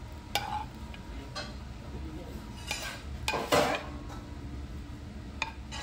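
Metal utensil clinking and scraping in a frying pan as stir-fried seafood and vegetables are served onto a plate of noodles: a few sharp clinks and one louder scrape about halfway through, over a steady low hum.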